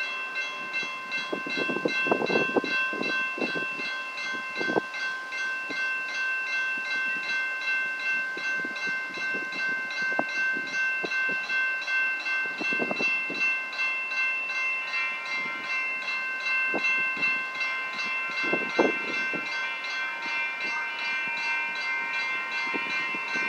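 Light-rail grade-crossing warning bells ringing steadily with an even, rapid pulse, and a second bell tone joins about two-thirds of the way through. Short low rumbles come and go underneath.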